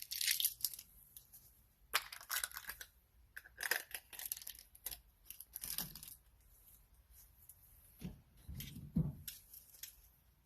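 Masking tape being peeled off a brake caliper in several short tearing rips, then a couple of dull knocks as the caliper is handled near the end.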